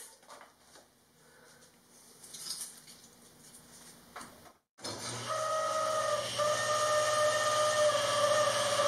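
After a few seconds of near quiet, a table saw is heard running, a steady whine with a low hum, as a board is fed through to rip it to width; the pitch dips slightly now and then under the load of the cut.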